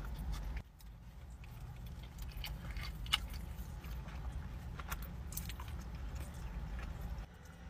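A person chewing a mouthful of burrito close to the microphone: soft, wet mouth clicks and smacks scattered through the chewing, over a low steady hum.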